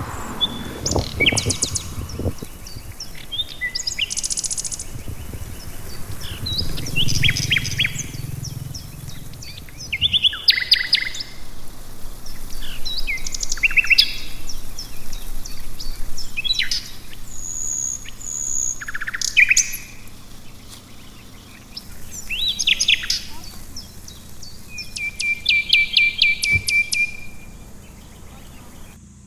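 Wild songbirds singing, a string of short high trills and chirped phrases one after another, with short pauses between.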